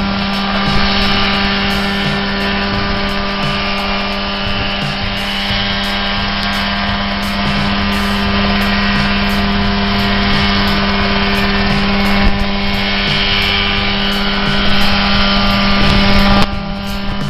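Small homemade single-seat helicopter running at steady power while hovering just above the ground: a piston engine's steady drone with the whir of the rotor. The sound drops suddenly in level about a second before the end.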